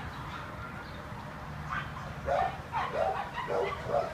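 A dog barking several times in quick succession, starting about two seconds in.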